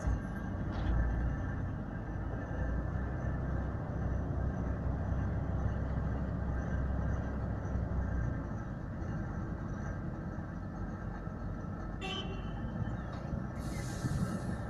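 Diesel engines of a Tatra 815 dump truck and a Komatsu PW140 wheeled excavator running steadily as the truck drives up to the excavator. About twelve seconds in there is a brief high toot, and just after it a short hiss.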